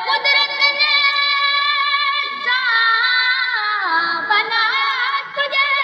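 A boy's solo voice singing an Urdu naat, holding long notes, with ornamented turns and a long falling glide a little past halfway.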